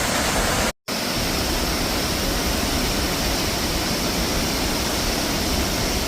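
Berschnerfall waterfall swollen after heavy rain, falling water making a steady, loud rush. Under a second in, the sound cuts out for a split second and then comes back.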